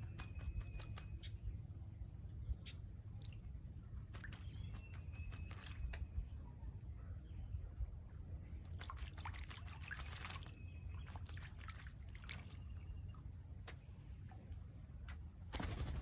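Water splashing and dripping as a female red-capped parrot bathes: quick irregular splashes, busiest about nine to ten seconds in and again at the very end.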